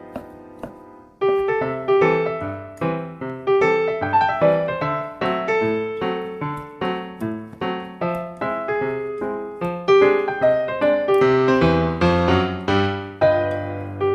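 Background music: a light piano melody of plucked-sounding, decaying notes, starting a new phrase about a second in and adding low bass notes near the end.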